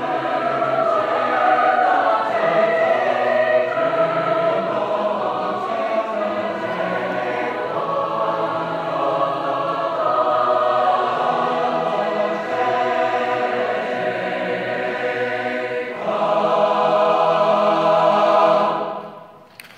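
Large mixed student choir singing, swelling about sixteen seconds in to a loud held final chord that is released and dies away just before the end.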